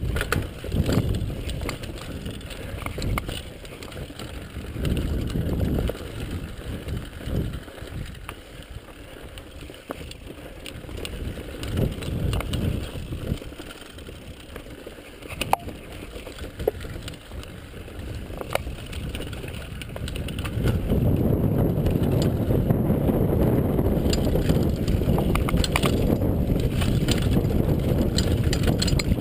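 Mountain bike ridden fast down a leaf-covered dirt singletrack, heard from a chest-mounted GoPro: uneven rolling and rattling noise from the tyres and bike, with occasional sharp knocks. About two-thirds of the way through it gives way to a louder, steady rush of wind on the microphone.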